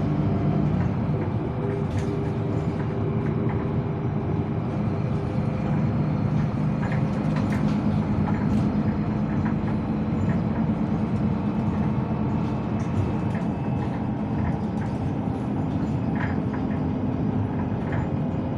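Inside a moving articulated city bus: steady drivetrain hum and road noise, its pitch shifting a little partway through, with scattered light rattles and clicks from the bus fittings.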